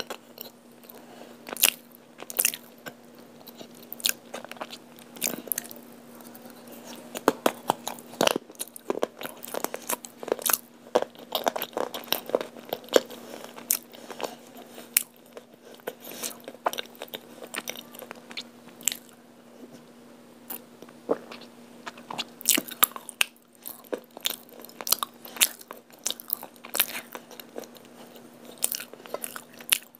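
Close-up crunching and chewing of hard baked-clay pieces: many sharp, irregular cracks as the pieces break between the teeth, over a faint steady low hum.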